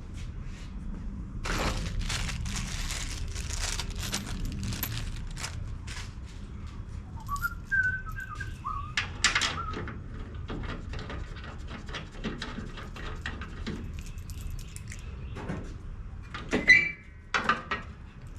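A person whistling a few short notes about halfway through, among handling noises from parts being worked on. Earlier there is a few seconds of scraping or rubbing noise, and near the end two sharp metallic knocks.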